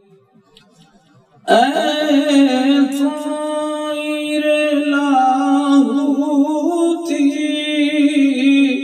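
A man singing in a long, wavering melodic line with ornamented turns and no clear words, a drawn-out chanted note of Urdu verse recitation. It begins about a second and a half in, after a short pause.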